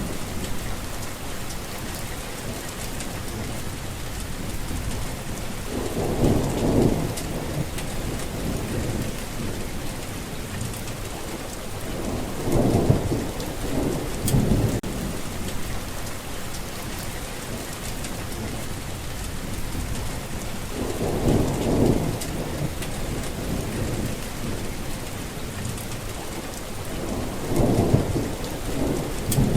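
Steady rain falling, with thunder rumbling in four times, about every seven or eight seconds.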